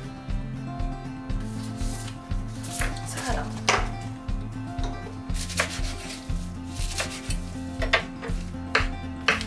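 Kitchen knife chopping mizuna greens on a wooden cutting board: sharp knocks, several in the second half, over soft background music. Sheets of paper rustle a little earlier on.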